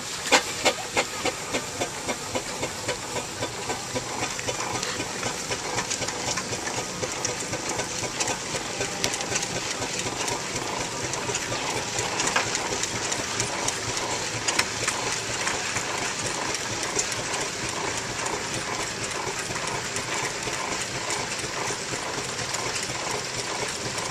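Steam traction engine running, its steam hissing steadily with a regular beat of exhaust chuffs; sharper, louder beats stand out in the first second or so.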